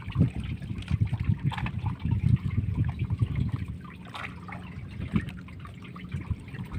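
Water trickling and dripping off a wet gillnet as it is hauled and worked by hand over the boat's side, with irregular small knocks and rustles of the net being handled.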